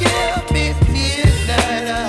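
Background music with a heavy bass, a steady drum beat and a sung melody line.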